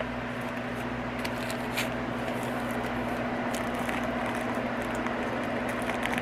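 Faint clicks and rustling of a diamond painting toolkit's plastic packaging being opened by hand, over a steady background hum.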